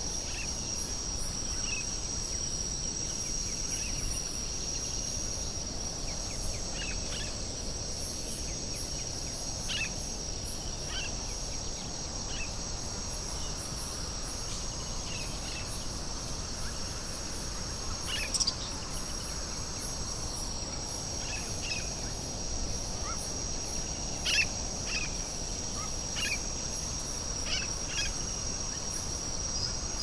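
Crickets trilling in a steady high chorus, with scattered short bird chirps over it, a few of them louder in the second half.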